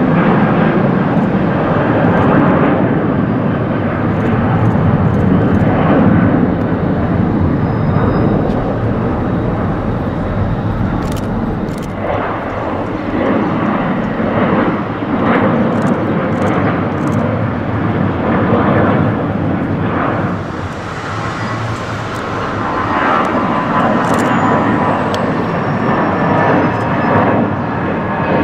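Jet airliners (an Airbus A330, a Boeing 737-800 and an Airbus A320) climbing out after takeoff, their engines at takeoff power making a loud, steady rumble. The sound dips briefly about twenty seconds in.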